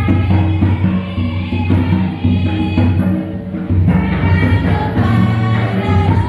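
Loud music: voices singing over a drum beat.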